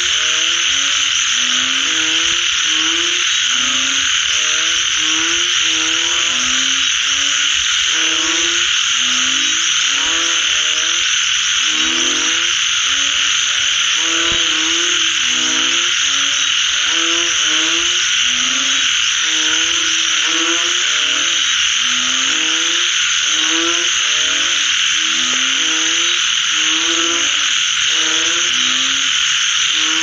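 A dense chorus of frogs calling after rain. Many short, low croaks overlap and repeat several times a second over a steady, high-pitched wall of sound that never breaks.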